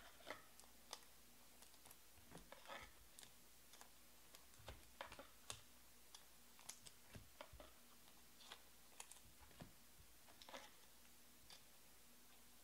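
Faint, irregular soft clicks and rustles of trading cards being slipped into plastic penny sleeves.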